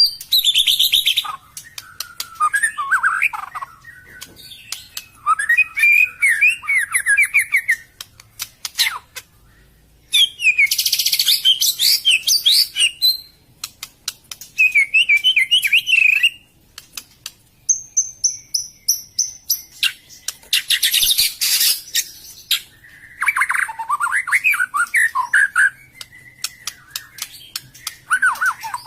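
White-rumped shama (murai batu) singing: a varied song of rapid whistled notes, trills and sharp clicking chatter, delivered in phrases a few seconds long with short pauses between them.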